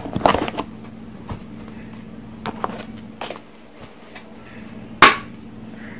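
A tarot deck being handled and shuffled: scattered soft clicks and rustles of cards, with one loud sharp click about five seconds in.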